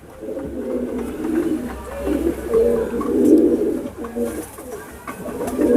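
Several domestic pigeons cooing together in a loft, low overlapping coos.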